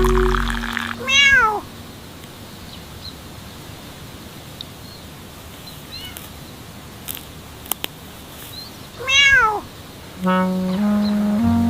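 A cat meowing twice, about eight seconds apart, each a short call that rises and falls in pitch. Music fades out just after the start and comes back near the end, with a few faint clicks in the quiet between the calls.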